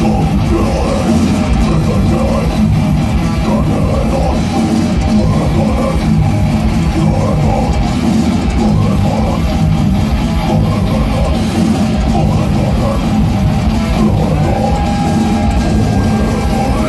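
A death metal band playing live at full volume: distorted electric guitars, bass and a drum kit in a dense, unbroken wall of sound.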